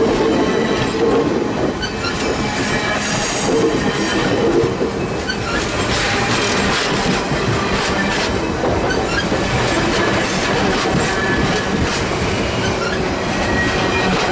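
Stainless steel passenger cars of VIA Rail's Canadian rolling past close by. The wheels click over the rail joints in an uneven run of clacks, with brief high wheel squeals now and then.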